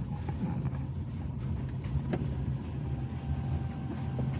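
Steady low rumble of a car's engine and tyres, heard from inside the cabin while driving on a wet mountain road. A couple of faint ticks come through about one and a half and two seconds in.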